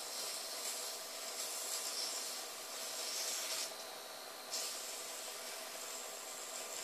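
Electric eraser spinning its rubber tip against sandpaper: a steady rasping over the small motor's faint hum, as the worn tip is ground back to a fine point. The rasping eases off briefly around four seconds in.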